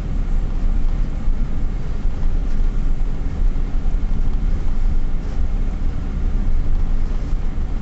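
Steady low rumble of a vehicle driving along a city street, heard from inside the cab: engine and road noise.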